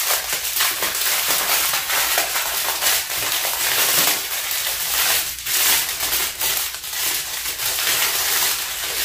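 Small plastic baggies of resin diamond-painting drills being handled and crinkled, with the tiny drills rattling inside: a continuous crackling full of fine clicks.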